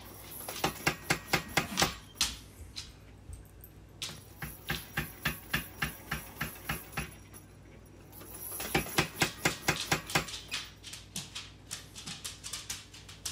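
Power hammer striking hot steel in runs of rapid, even blows, about five or six a second, with short pauses between four runs, as the blade's point is drawn out.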